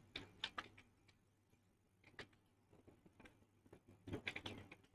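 Faint, irregular clicks of computer keyboard keys being typed, with a quick flurry of keystrokes about four seconds in.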